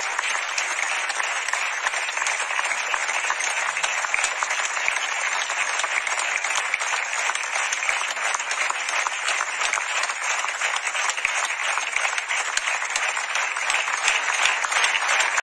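Audience applauding: many hands clapping in a dense, steady patter that holds at an even level, then cuts off abruptly.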